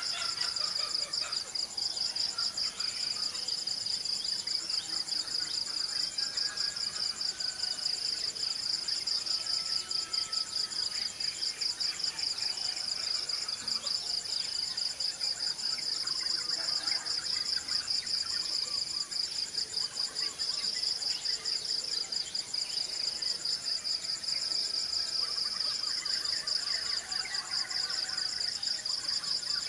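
An insect's steady, rapidly pulsing high-pitched trill, with faint bird chirps underneath.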